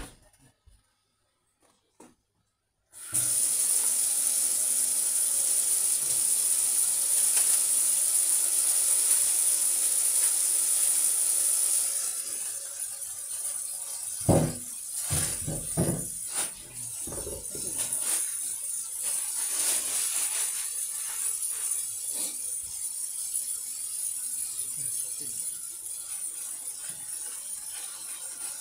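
Kitchen tap running into a stainless steel sink, starting about three seconds in as a steady hiss of falling water. About halfway through the stream sounds lower as hands work under it, with a few knocks in the middle.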